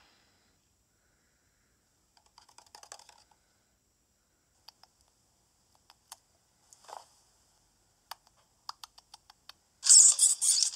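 Faint scattered clicks and soft rustles, with a cluster of quick clicks, then a sudden loud rustling burst near the end.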